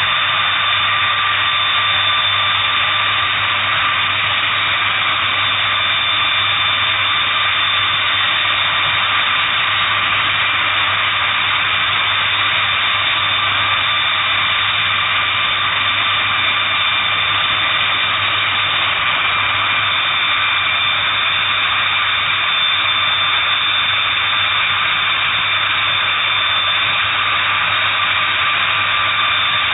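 Boeing B-52H Stratofortress's TF33 turbofan jet engines running steadily on the ground: a constant jet roar with a high whine on top.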